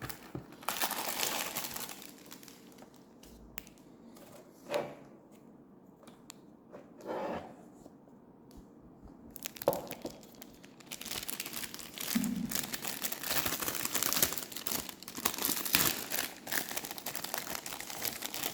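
Packaging being handled and unwrapped: a short burst of crinkling at the start, a few scattered rustles and light knocks, then long continuous crinkling and tearing of wrapping through the second half.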